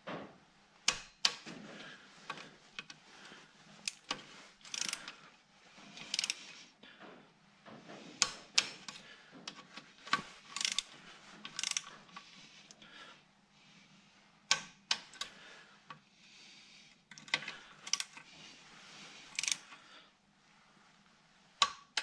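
Socket wrench with a long extension ratcheting in short runs of clicks as bolts are turned, with scattered metal tool clinks between the runs.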